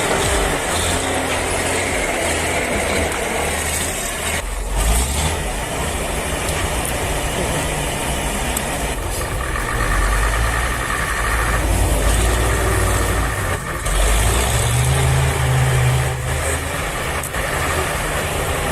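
Heavy vehicle's engine running, with a steady low rumble whose pitch shifts now and then. The sound changes abruptly several times.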